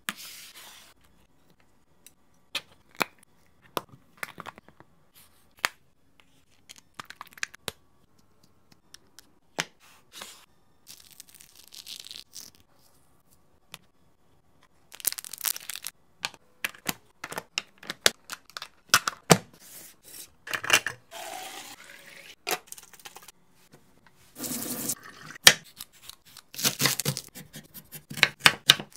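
Food-prep handling sounds while packing a plastic bento box: scattered sharp clicks and taps of the box and its lids, with stretches of rustling and tearing, busier in the second half. Near the end, knife strokes on a wooden cutting board as carrot is sliced.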